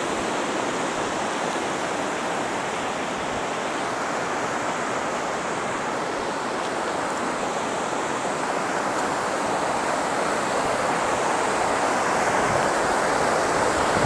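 Waterfall: a steady rush of falling water, growing slightly louder toward the end.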